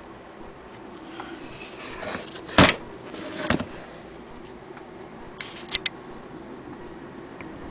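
Handling noises on a Willcox & Gibbs hand-crank sewing machine: a sharp knock about two and a half seconds in, a second knock about a second later, then a few light clicks as a hand goes to the crank handle.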